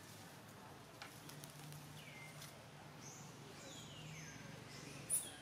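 Baby monkey giving thin, high squeals that fall in pitch, several in a row, over a faint low hum. A sharp, short high click sounds just before the end.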